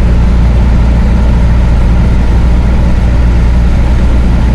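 Chevrolet D20 pickup's diesel engine running steadily at cruising speed, heard from inside the cab as a constant low drone with road noise over it.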